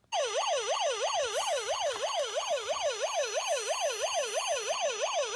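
Toy Hess fire truck's battery-powered electronic siren switching on abruptly. It wails in a fast, even up-and-down yelp of about four sweeps a second.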